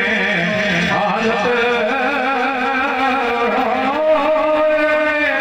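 A man singing verse in the Pothwari sher style, long wavering held notes with heavy vibrato, over melodic string accompaniment.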